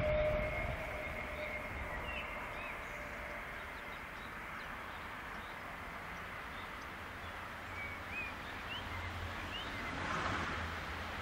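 A train receding after passing on the line, a steady tone fading out over the first few seconds and leaving a steady background hiss. A few short bird chirps come in between, and a brief swell of noise comes near the end.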